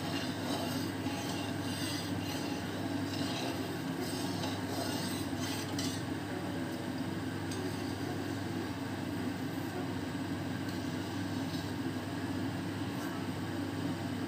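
Steady low rumbling noise under faint crackling sizzle from a few drops of malpua batter frying in hot oil in a kadai. The drops are a test of whether the oil is hot enough.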